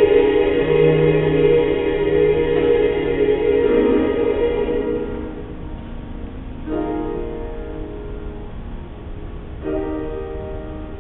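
A choir singing slow, sustained chords. A long chord fades out about five seconds in, and two softer chords then enter about three seconds apart, each dying away.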